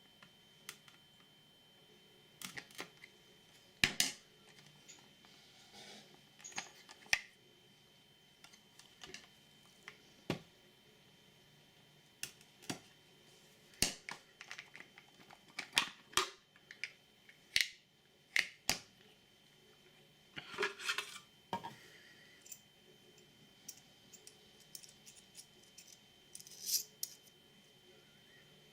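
Irregular clicks and taps of plastic flashlight packaging being handled and prised open, with a short burst of rustling about two-thirds of the way through.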